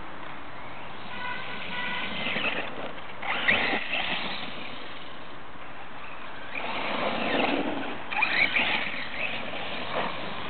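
HPI Bullet ST electric RC stadium truck on a 2S LiPo driving in two bursts of throttle, its motor and gears whining. Its tyres scrabble over grass and a dirt path. The first burst opens with a steady whine, and the second, louder and rougher, starts about six and a half seconds in.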